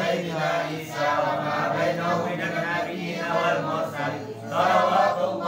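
A group of men chanting sholawat together without instruments: Arabic devotional verses in praise of the Prophet Muhammad, sung in a steady, repeating melody.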